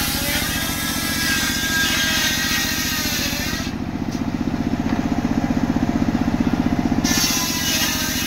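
Engine-driven circular sawmill running: its engine runs steadily with a fast, even pulse while the large saw blade spins.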